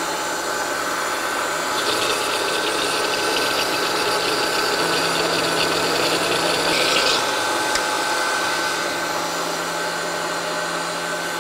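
Electric countertop blender running steadily, its motor whirring as it purées a thick green vegetable-and-herb smoothie. A brighter grinding note rides on top for a few seconds in the middle.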